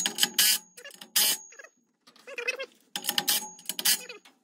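Cordless ratchet run on a muffler clamp's U-bolt nut: short bursts of motor whine and metallic clicking, three quick ones in the first second and a half, then a longer run about three seconds in, as the exhaust clamp is tightened.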